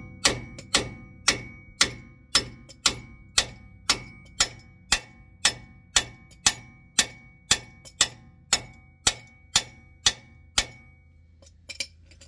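An adjustable wrench used as a hammer, striking the steel end of a Ford F-250's stock track bar at the front axle over and over, about two blows a second, each with a ringing metal clang. The blows are meant to knock the track bar's tapered ball-joint stud loose from its axle mount. The hammering stops about ten and a half seconds in.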